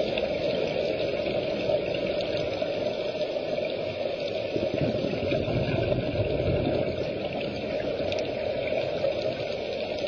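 Steady, muffled rushing noise recorded underwater through a camera's housing, swelling a little in the low part around the middle.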